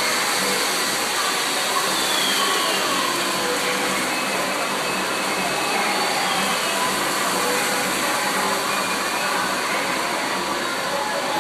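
A model train layout running with its animated accessories, heard as a steady, even rushing noise. A faint regular low pulse runs under it.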